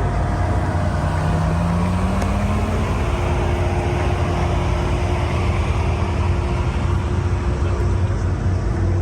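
Steady low rumble of car engines running, with one engine's note rising for a couple of seconds about a second in.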